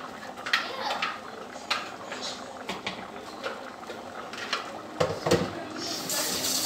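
Aluminium pot of broth at a rolling boil, bubbling with scattered pops and clicks. A few louder knocks come a little after five seconds, and about six seconds in a steady water-like rushing noise begins.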